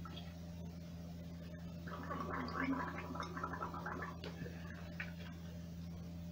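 A person gargling a mouthful of warm salt water, a bubbling gurgle from about two seconds in until about four seconds in, over a steady low hum.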